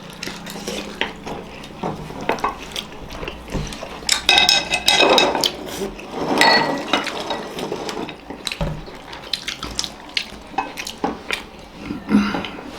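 Chopsticks clicking and scraping against plates as slippery momos are chased and picked up, with scattered irregular taps that come thicker about four to seven seconds in.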